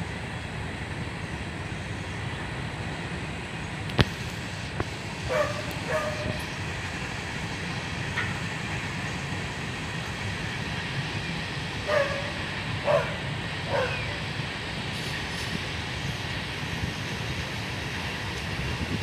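Freight train of tank cars rolling past with a steady low rumble. A dog barks several times over it, a few barks about a third of the way in and a few more past the middle, and there is a single sharp click about four seconds in.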